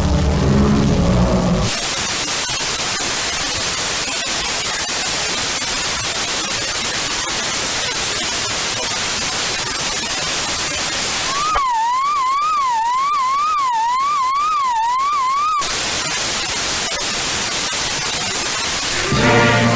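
Steady TV-style static hiss, broken for about four seconds by an electronic warbling tone that sweeps up and down about twice a second, then static again. It opens on the tail of a low pitched sound, and music comes in just at the end.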